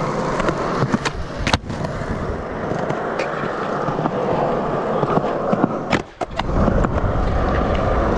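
Skateboard wheels rolling over skatepark concrete, with a few sharp clacks from the board. About six seconds in, the rolling cuts out for a moment, then returns louder and deeper.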